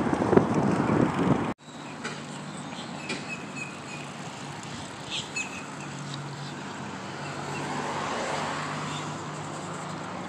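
Wind buffeting the microphone while cycling, cut off abruptly about a second and a half in. After that, quieter outdoor sound: a few short bird chirps, and from about halfway on a steady low hum of a passing road vehicle that swells near eight seconds in.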